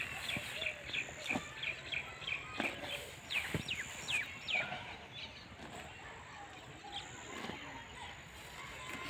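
Small birds chirping in quick, short, high notes, several sliding downward, busiest in the first four or five seconds and fainter after. A few soft knocks are mixed in.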